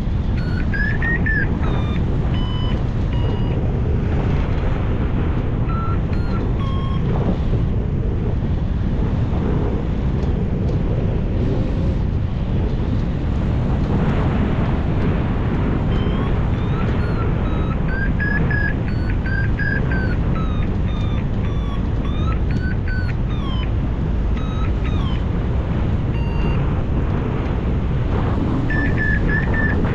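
Wind rushing steadily over the microphone in flight, with a hang-gliding variometer's electronic beeps stepping and arcing up and down in pitch, thickest around the middle and near the end.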